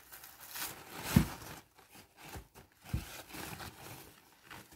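Plastic packaging bag rustling and crinkling as it is cut with scissors and pulled open, with two dull thumps, about a second in and again about three seconds in.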